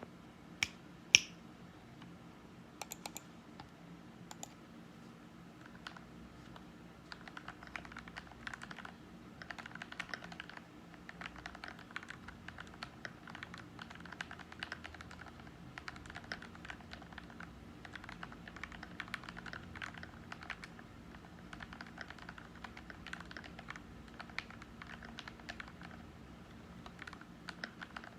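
Typing on an FL680 mechanical keyboard with lubed Gateron Milky Yellow Pro linear switches and Akko ASA PBT doubleshot keycaps, in a foam-dampened case. The keystrokes are sparse at first and become steady, fast typing from about seven seconds in. Two sharp clicks, louder than the typing, come about a second in.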